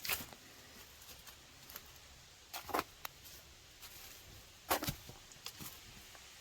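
A few scattered footsteps on the trail, with long gaps between them.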